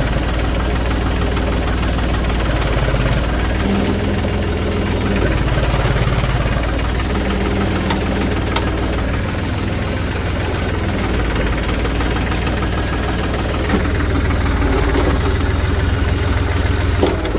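Heavy diesel engine of a backhoe loader running steadily, its note shifting up and down every few seconds as it works.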